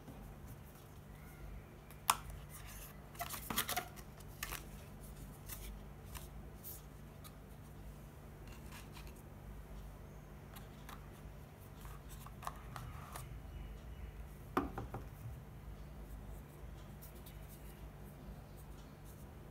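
Cardboard phone-box packaging being handled: a sharp tap about two seconds in, then a short burst of scraping and rustling, scattered soft clicks, and another scrape-and-click cluster about three quarters of the way through. A steady low hum runs underneath.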